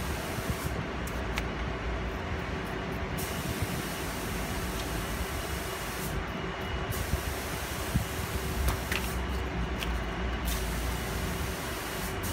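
A steady mechanical hum and hiss, with a few faint clicks of scissors snipping a plastic repair patch.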